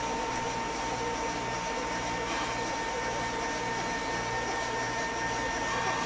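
A steady motor whir with a faint, constant high whine.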